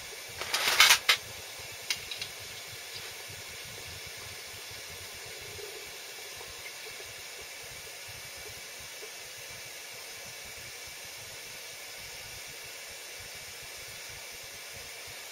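Hot sand-coated lead fishing weight, its plastic coating still molten, dunked into a bowl of water: a brief sizzling hiss about half a second in, lasting under a second. A few light clicks follow, then a faint steady hiss.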